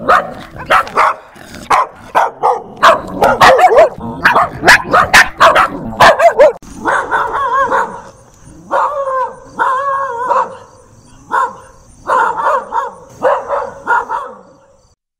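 A dog barking over and over: a fast run of short, sharp barks, then from about six and a half seconds in, longer, more drawn-out barks with a faint high hiss behind them. The barking stops shortly before the end.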